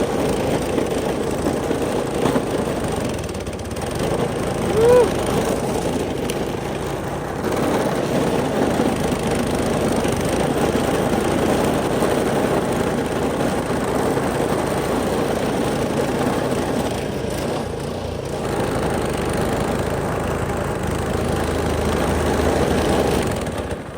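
Gas snowblower engine running steadily, then cutting out just before the end: the engine stalls and needs the choke to restart.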